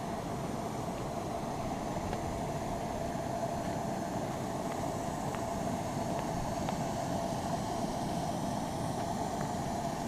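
A vehicle engine running steadily, with a constant hum over even noise.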